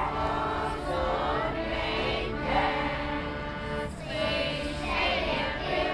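A group of kindergarten children singing a Christmas song together, with steady held notes sounding beneath the voices.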